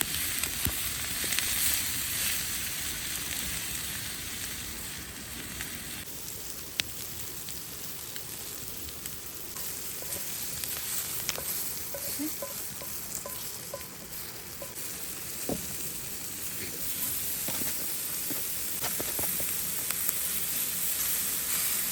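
Peppers and onions sizzling in olive oil in a pan over campfire coals, a steady hiss with scattered sharp pops.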